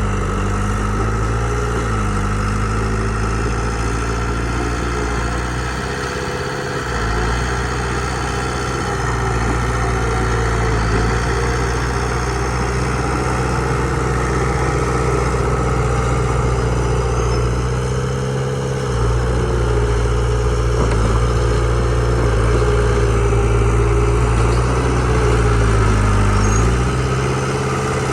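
Komatsu bulldozer's diesel engine running steadily. Its note sags briefly in pitch about a quarter of the way in, again about two-thirds of the way in, and once more near the end.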